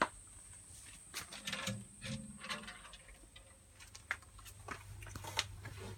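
Handling noise from a handheld camera: faint, scattered clicks and light taps over a steady low hum.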